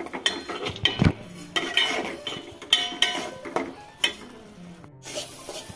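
A long metal spoon scraping and knocking against a metal cooking pot while stirring a thick spice masala as it is fried down, in irregular clinks and scrapes with brief metallic ringing.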